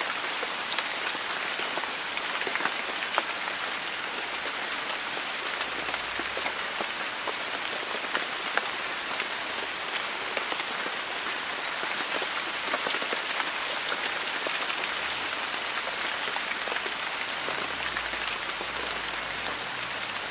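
Steady rain falling on a surface: an even hiss dotted with many sharp individual drop ticks.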